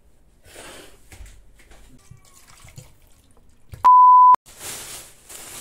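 A loud, steady 1 kHz test-tone beep, the kind played with colour bars, lasting about half a second, about four seconds in. Softer hissing noise comes before and after it.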